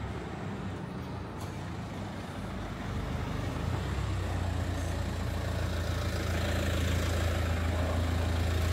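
Street traffic: a heavy vehicle's engine running with a low hum that grows steadily louder as it comes closer.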